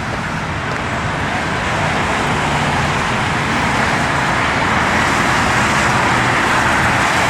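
Steady road traffic noise: a continuous rush of passing cars that grows a little louder over the first couple of seconds, then holds.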